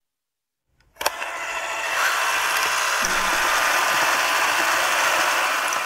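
Channel-intro sound effect: a sharp click about a second in, then a steady mechanical whirring hiss that holds until the logo card ends.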